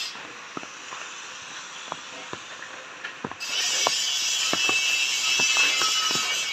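Footsteps on a wet paved path, about two short steps a second at a walking pace. About halfway through, a steady high-pitched hiss comes in abruptly and becomes the loudest sound.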